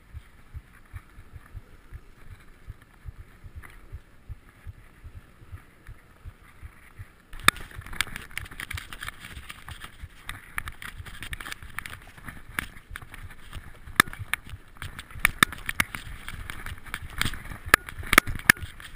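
Mountain bike ridden over a wooden boardwalk, giving regular low thumps about three times a second. About seven seconds in it switches abruptly to louder rattling with frequent sharp clacks as the bike rides rough forest singletrack.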